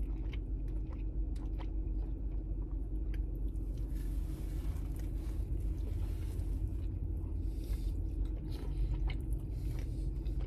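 A person chewing a mouthful of burger, with wet mouth clicks, over a steady low hum in a car cabin. A soft hiss rises in the middle and fades a few seconds later.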